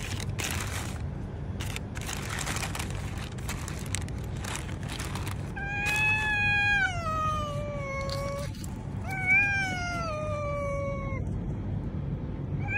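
A cat meowing twice, two long drawn-out meows that each fall in pitch, the first starting about halfway through. Before them there is rustling, with a low steady hum underneath.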